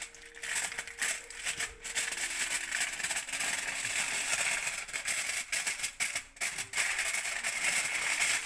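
Aluminium foil being crumpled and pressed down by hand over a cake mould, a continuous crinkling and crackling with many sharp crackles.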